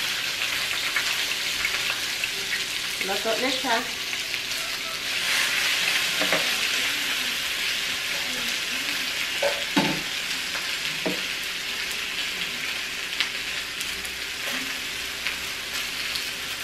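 Marinated chicken thighs sizzling steadily on a hot electric tabletop grill plate.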